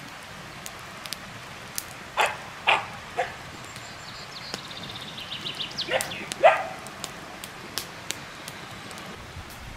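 A dog barking: three short barks about two seconds in, then two more around six seconds. A faint rapid high trill builds just before the second pair.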